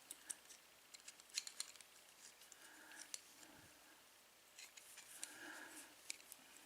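Faint, scattered metallic clicks and scrapes of a tool working at the retaining clip on a padlock's cylinder plug.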